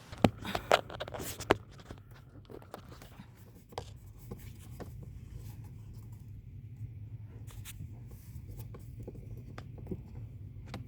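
Hands and tools working under a car dashboard to unbolt an HVAC blend door actuator. Sharp clicks and knocks in the first second and a half, then scattered light taps and scrapes over a steady low hum.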